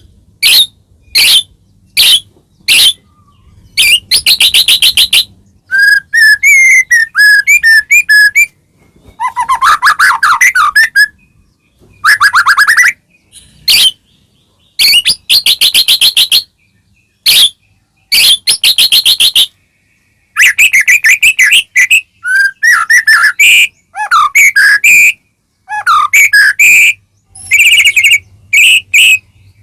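White-rumped shama (murai batu) in full song: short phrases of fast, dry rattling notes alternate with quick whistled warbles, each about a second long with brief pauses between.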